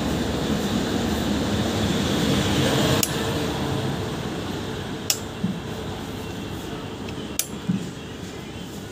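Steady background rumble and hiss, loudest for the first three seconds and then fading down, with three sharp clicks spread about two seconds apart.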